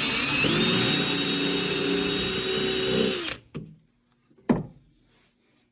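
Power drill pre-drilling a pilot hole in wood: its motor whine climbs to full speed just after it starts, runs steadily for about three seconds, then winds down and stops. A single sharp knock follows about a second later.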